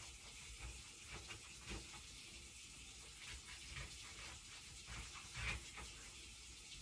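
Faint kitchen work: light knocks and clatters of dishes or utensils over a steady hiss, with a couple of louder thumps, about a second and a half in and again near the end.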